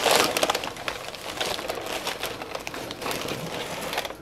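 Tissue packing paper rustling and crumpling as hands dig through a small cardboard shipping box: a dense, irregular crackle, loudest in the first second.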